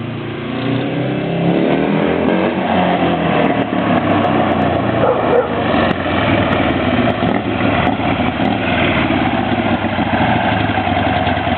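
Buell Lightning motorcycle's V-twin running through an aftermarket racing exhaust. It grows louder and rises in pitch over the first couple of seconds as it accelerates up close, then keeps running loud.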